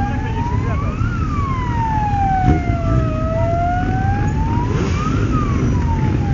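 Siren wailing in a slow rise and fall, about four seconds to each cycle, over the low rumble of a crowd of motorcycle engines idling.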